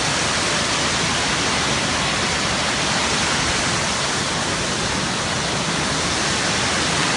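Waterfall's steady rush of falling water, an even hiss spread from low to high pitches that does not change.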